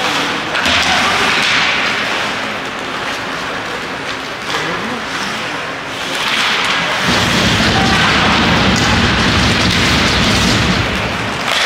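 Ice hockey rink ambience during a game: a steady noisy din with faint voices, joined by a heavy low rumble for about four seconds past the middle.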